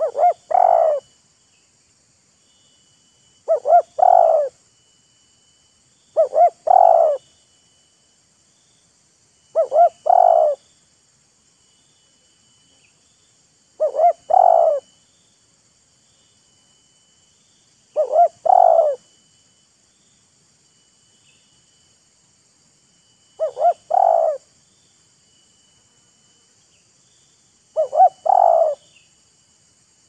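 Spotted dove cooing: eight phrases, each two short notes followed by a longer one, repeated every three to five seconds. A faint steady insect buzz runs behind.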